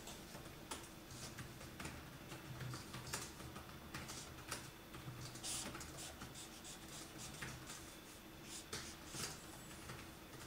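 Black felt-tip pen scratching on paper in faint, short, irregular strokes as it draws lines.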